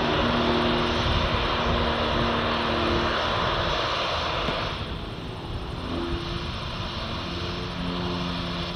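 Two Pitts aerobatic biplanes' piston engines droning together under power in a vertical climb, several steady engine notes at once. About five seconds in the sound drops and the notes shift in pitch.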